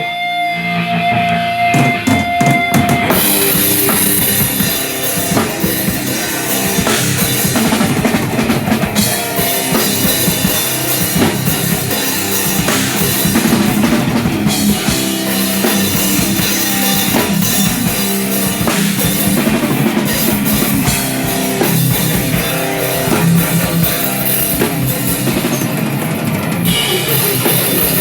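A live rock band playing loud, with drum kit, bass drum and electric guitars. A steady high tone holds for about the first three seconds, then the full band comes in.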